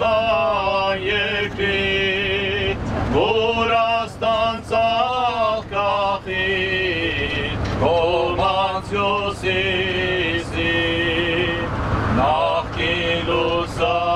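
A man chanting in long, wavering sung notes that glide from pitch to pitch, over the steady engine and road noise of a moving bus.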